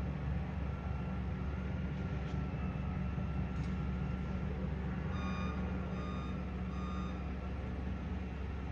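A heavy construction machine's diesel engine running steadily with a low rumble, while its backup alarm gives three short beeps a little past the middle.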